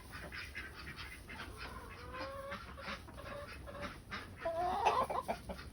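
Chickens clucking while they eat scraps, with short clucks throughout and a couple of drawn-out calls, about two seconds in and again near the end.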